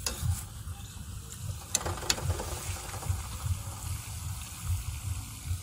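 Batata vadas deep-frying in a kadhai of hot oil: a steady sizzle of bubbling oil, with two sharp clicks about two seconds in and a low rumble underneath.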